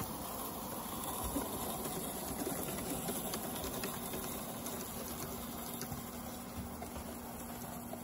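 Live-steam model locomotive running past, with a steady hiss of steam and faint light clicks from the running gear and track.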